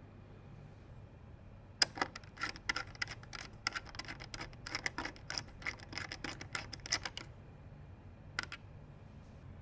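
A quick, irregular run of small clicks and scrapes from PC hardware being handled during assembly, lasting about five seconds, then a single further click near the end.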